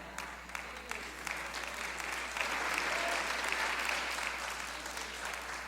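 Congregation applauding, the clapping swelling to a peak midway and then fading away.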